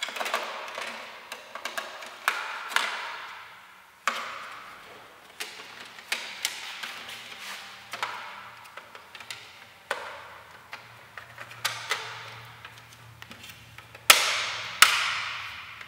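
Hard plastic knocks and clicks as a VW Polo 6R's loose front grille is handled and set against the car's front end, each knock ringing out briefly. Two sharp knocks near the end are the loudest.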